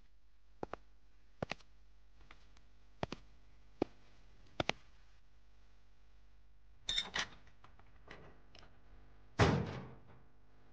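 A run of sharp double taps, about one every three-quarters of a second. About seven seconds in comes a brighter clatter, and then, loudest of all, a heavy door slams shut with a ringing, fading tail.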